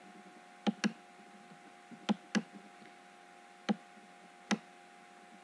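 Computer mouse button clicking six times over a faint steady electrical hum: two quick double clicks, then two single clicks.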